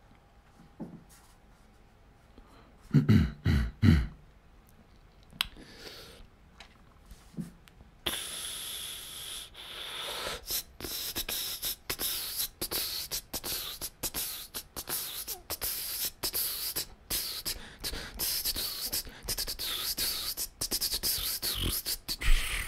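Beatboxing into a microphone: a few deep bass-drum sounds about three seconds in, then from about eight seconds a fast, unbroken pattern of sharp clicks and hissing high sounds.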